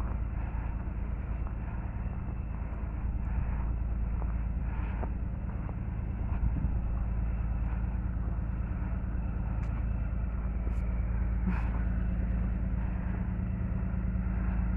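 Steady low vehicle rumble: engine hum and road noise, with a few faint clicks.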